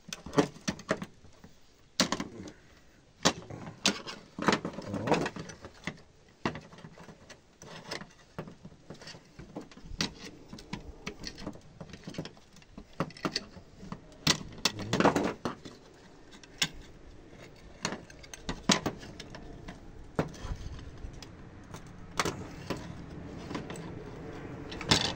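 Hand-disassembly of a monitor stand's plastic-and-metal swivel base: a screwdriver prying and scraping at the parts, with irregular clicks, knocks and rattles as they are worked loose and handled.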